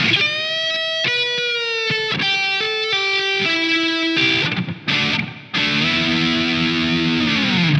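Fender Stratocaster electric guitar playing a slow minor pentatonic lick. Single held notes step down in pitch, then a held chord rings from about two-thirds of the way in, and its pitch sinks right at the end.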